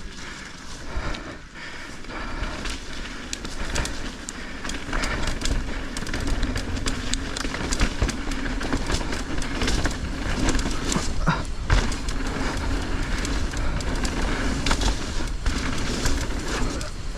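Mountain bike clattering and rattling over a rough, wet trail while descending, with many short knocks over a steady low rumble.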